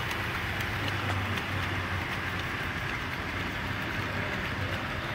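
Model freight train rolling along the layout track: a steady whir of wheels on rail and motor hum, with faint scattered clicks.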